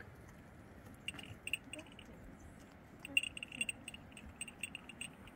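Light metallic jingling, like a small bell, in quick irregular strokes starting about a second in and coming thickest around the middle.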